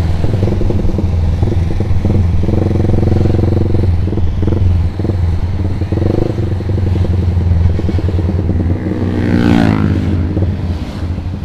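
Yamaha Vixion's 150 cc single-cylinder four-stroke engine running under way through a Proliner TR1 R aftermarket exhaust, a steady deep exhaust drone. Near the end comes a brief sweep falling in pitch.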